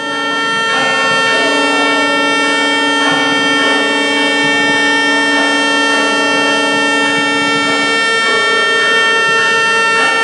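Many boat and ship horns blowing together as one steady, many-pitched chord, with a low horn dropping out about eight seconds in. It is the horn salute customary at the Theophany blessing of the waters.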